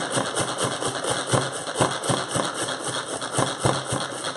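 Pampered Chef manual food processor worked rapidly by its processing handle, its spinning blades chopping mini Oreo cookies. It makes a continuous whirring rattle pulsing about seven times a second, with irregular knocks.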